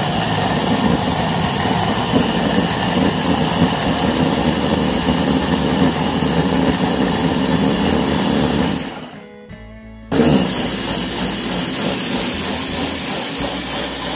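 Small press-top electric mini chopper blending a fruit-and-greens smoothie, its motor running with a steady whir. About nine seconds in it is released and winds down for about a second, then is pressed again and runs on.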